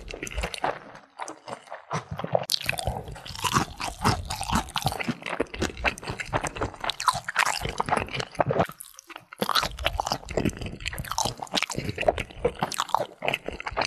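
Close-miked chewing of a full mouthful of sauced Korean fried chicken: a dense run of crunching and wet mouth sounds, pausing briefly about a second in and again near nine seconds.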